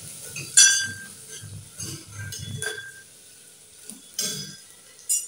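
Metal spoon clinking and scraping against a steel cooking pot while stirring a spice tempering, several sharp clinks with a short ring, the loudest about half a second in.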